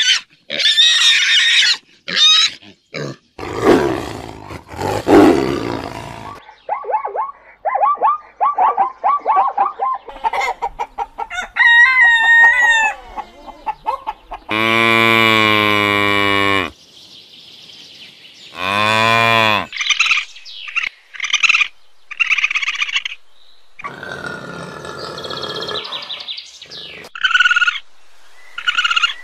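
A string of different animal calls, one after another: squealing at the start, a low rasping call, clucking, then a long rooster crow about halfway through with a shorter call after it, and short high chirps near the end.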